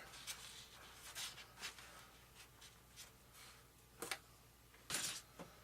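Faint, scattered rubbing and scratching with a few light taps, from hands pressing a servo wire into a shallow channel cut in an RC airplane wing.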